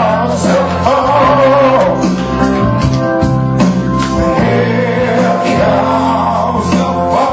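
Music playing with a voice singing over a steady beat and bass line.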